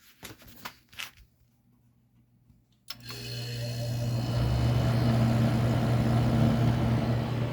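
A few light clicks, then about three seconds in a sharp click as a 1970 Oasis (Ebco) dehumidifier is switched on. Its compressor and fan motor start up, building over about a second into a steady low hum with the rush of air from the fan.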